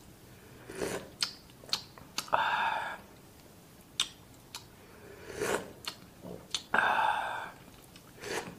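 A man slurping curry noodle broth off a wooden spoon: two slurps, each under a second long, with lip smacks and small clicks between them.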